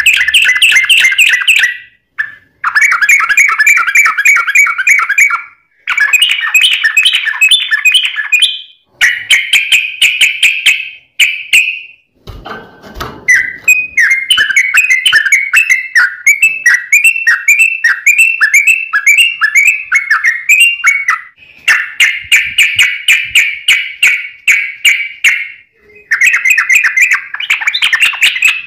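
Sooty-headed bulbul (trucuk) singing a fast, almost unbroken song: dense phrases of quick, bright notes two to three seconds long with only short breaks between them. About halfway through, one long phrase is a run of quick, falling notes, roughly two a second. A brief low thump comes near the middle.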